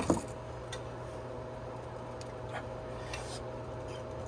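Faint, scattered light clicks and rubbing of small handling noises over a steady low hum.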